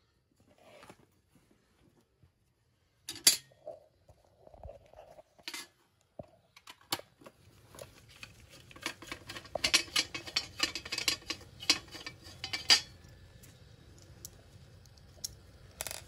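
Gloved hands handling a small sheet-metal switch bracket and multimeter test leads: a sharp click about three seconds in, a few scattered clicks, then a dense run of small metallic clicks and rustling that stops near the end.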